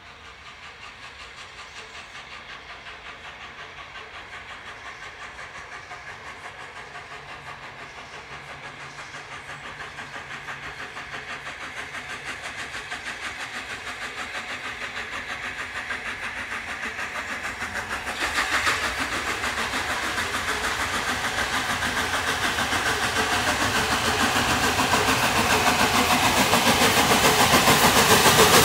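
LNER A4 class three-cylinder steam locomotive approaching under steam, its quick, even beats growing steadily louder as it nears, with a sudden jump in loudness about two-thirds of the way through.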